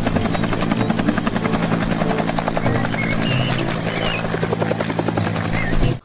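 Bell UH-1 (Huey) military helicopter hovering low, its two-bladed main rotor chopping fast and evenly over a steady engine hum.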